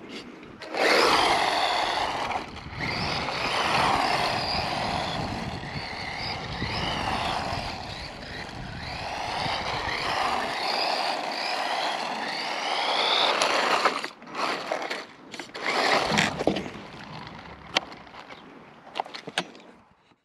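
Electric RC car driven hard in tight circles on asphalt: motor and gear whine rising and falling with the throttle over tyre noise for about thirteen seconds, then a few shorter bursts of throttle before it goes quiet. The tyres grip rather than slide, so it will not spin into donuts.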